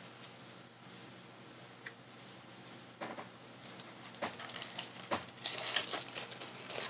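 Paper sandwich wrapper crinkling and rustling as a sub is unwrapped and handled in a foam clamshell box, with a few sharp clicks. The rustling grows louder over the last few seconds.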